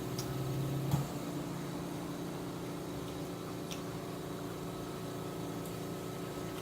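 Steady machine hum, like a fan or appliance running in the room, with one short sharp tap about a second in and a couple of faint ticks later.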